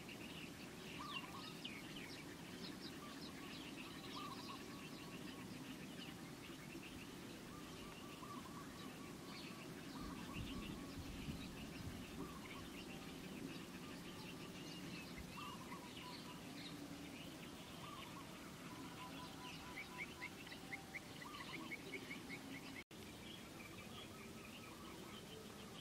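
Birds chirping and calling, many short high chirps in quick runs, over a steady low background rush of outdoor ambience. The sound cuts out for an instant near the end.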